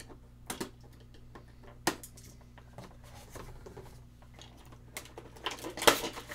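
Scissors snipping the plastic tabs that hold an action figure in its clear plastic packaging tray: a few sharp separate snips. Near the end comes a louder crackle of the plastic tray as the figure is pulled free.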